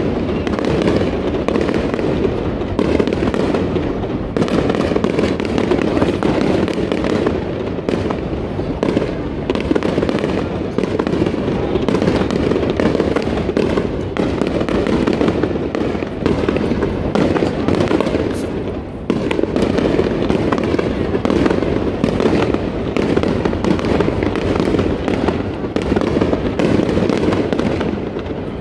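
Aerial firework shells bursting in a dense, continuous barrage: a rapid, unbroken stream of bangs and crackles that dips only briefly about two-thirds of the way through.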